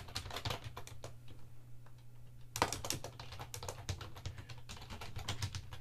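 Typing on a computer keyboard: a quick run of key clicks, a pause of about a second and a half, then typing starts again with one louder keystroke, over a steady low hum.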